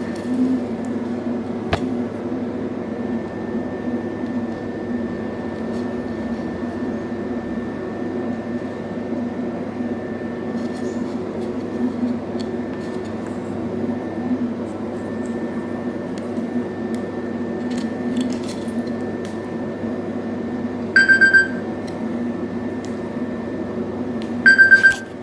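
CNC-driven wire loom running, its motors giving a steady hum with a faint high whine and scattered light ticks. Two short beeps sound near the end, a few seconds apart.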